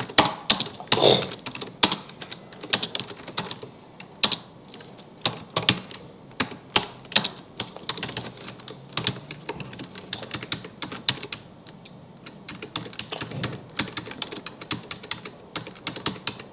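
Typing on a computer keyboard: irregular key clicks in quick runs, with short pauses between them.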